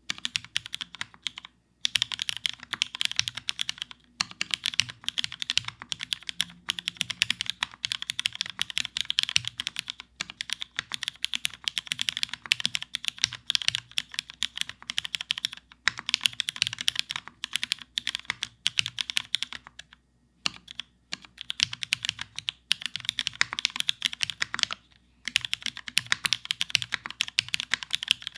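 Fast typing on a custom mechanical keyboard with Cherry Hyperglide MX Black linear switches in an aluminium plate and GMK keycaps: dense runs of keystrokes with a few short pauses.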